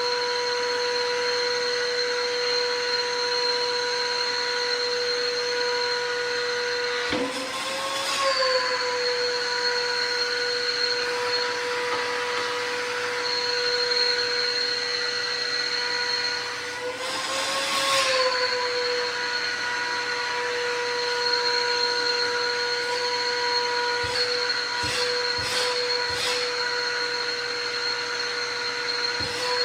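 Stanley 4-gallon wet/dry vacuum running with a steady high motor whine. Twice, about 7 and 17 seconds in, its pitch rises briefly with a rush of air as the load at the nozzle changes. A few light knocks come near the end.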